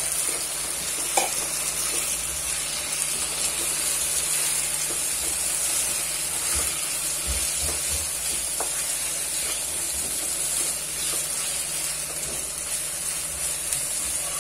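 Marinated chicken pieces sizzling in hot oil with onions in a non-stick kadai, stirred with a spatula that scrapes and taps the pan. There is a steady frying hiss throughout, scattered light ticks, and a sharp knock about a second in.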